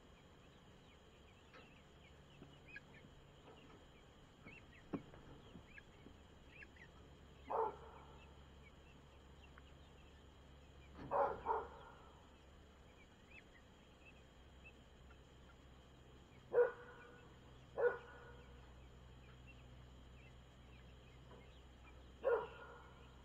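Six short animal calls, spaced irregularly, two of them in a quick pair, over faint high chirping.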